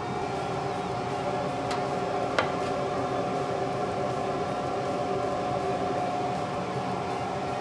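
A steady mechanical hum, even throughout, with a light tick and then a sharper click a little after two seconds in.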